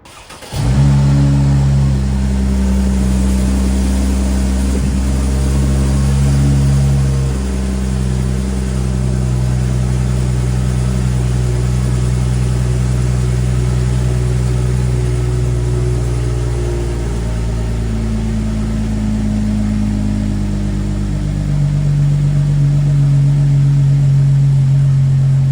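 Mercedes-AMG SLC43's twin-turbo V6 starting about half a second in and then idling steadily, its pitch shifting slightly a few times.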